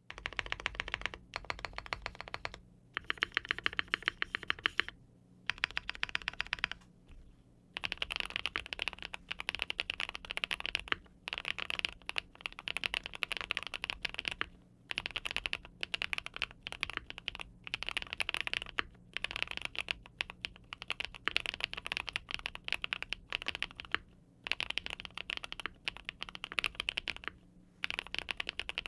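Typing on a Monsgeek M1 custom mechanical keyboard with linear switches: fast runs of keystrokes clacking, broken by short pauses every few seconds.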